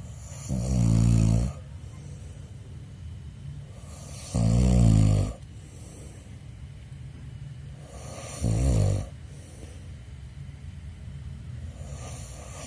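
A man snoring loudly in his sleep, one long rasping snore about every four seconds with quieter breathing between.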